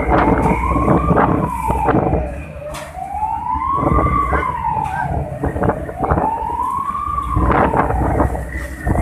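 Wailing siren, its pitch rising and falling in a slow cycle of about three seconds, over a heavy low rumble with scattered knocks.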